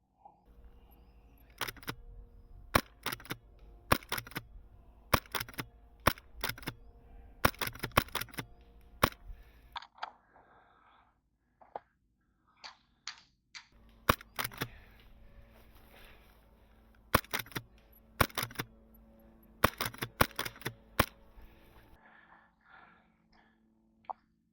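Airsoft guns firing: sharp single cracks, many in close pairs, in two spells with a pause of a few seconds between them.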